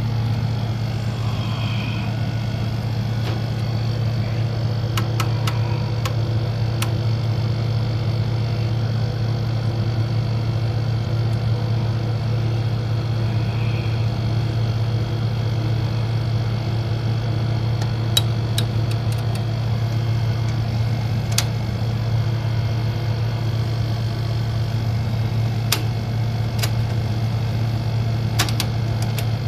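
Panasonic NV-8800 video recorder running with a steady low hum and a few sharp clicks from its mechanism. It is a deck whose tape transport runs but whose loading mechanism fails, so it will not play or record.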